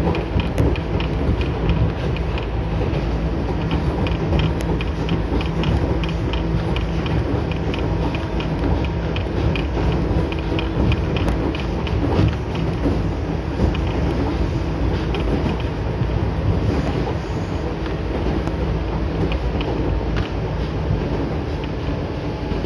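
Ohmi Railway electric train running between stations, heard from inside the passenger car: a steady rumble of wheels on the rails with a constant hum, overlaid by quick rattling ticks from the car body.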